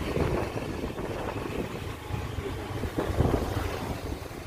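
Wind buffeting the microphone over the engine and road noise of a moving motor scooter, rising and falling in gusts.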